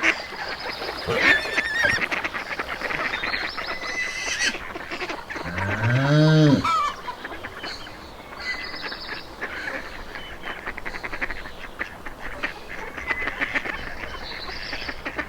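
Farmyard ambience of poultry calling and clucking throughout, with one long, low cow moo about six seconds in that rises and then falls in pitch.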